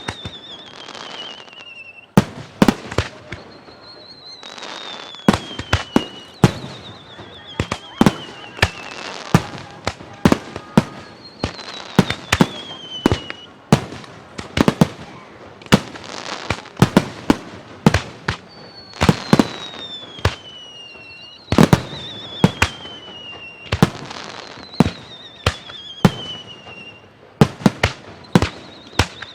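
Aerial fireworks bursting in a rapid, irregular string of sharp bangs, with a crackling hiss between them and repeated whistles that each slide down in pitch over about a second and a half.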